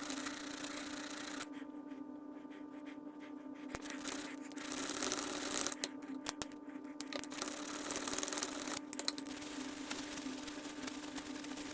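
Bench grinder motor running with a steady hum while a wire wheel scrubs metal clean, a hissy scratching that stops briefly about a second and a half in and again around six seconds in.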